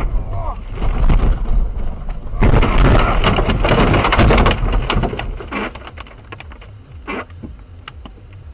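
A car crashing off the road and ploughing through snow and brush: a loud rumbling and crunching that builds about a second in and is heaviest for a couple of seconds. It then dies down into scattered knocks and cracks.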